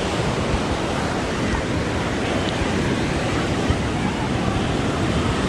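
Ocean surf washing onto the beach, a steady rush with wind buffeting the microphone.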